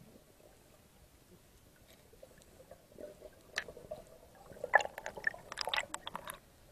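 Underwater clicks and crackles close to a diver's camera housing. They start about three and a half seconds in, come thickest and loudest around five seconds in, and stop shortly before the end.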